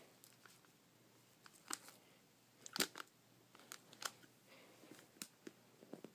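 Faint handling noise: scattered light clicks and taps over low room tone, a few louder ones, the loudest a little under three seconds in.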